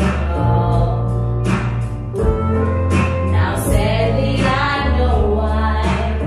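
Karaoke: a song with a heavy bass line playing loudly, with singing over it.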